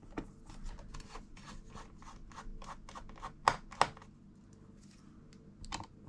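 Small T6 Torx precision screwdriver working the fan screws out of a Mac mini: a run of light clicks and scratches of the bit in the screw heads, with two sharper clicks about three and a half seconds in.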